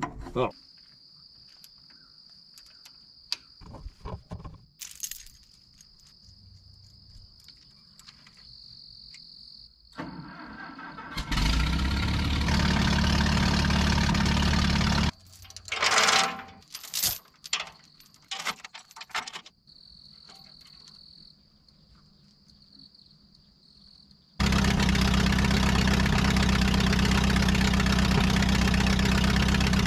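Insects trilling steadily in quiet stretches, with scattered clicks and knocks. An Allis-Chalmers D17 tractor engine comes up about ten seconds in and runs steadily until it cuts off suddenly around 15 seconds. It runs again from about 24 seconds, while the tractor's boom and chains hold the engine being pulled from the grader.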